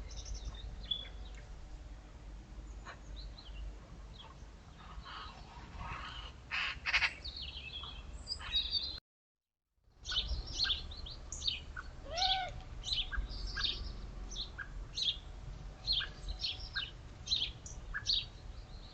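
Small garden birds chirping and calling: many short, high chirps in quick succession over a steady low rumble. The sound drops out for about a second near the middle, then the chirping comes back busier.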